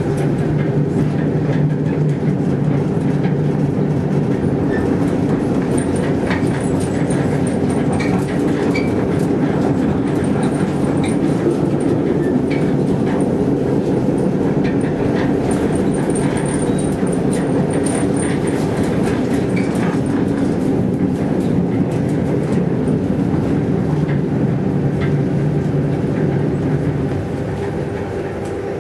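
Helsinki city tram running along its street track, heard from on board: a steady motor hum over rolling rail noise, with faint high squeals now and then. It quietens near the end as the tram slows.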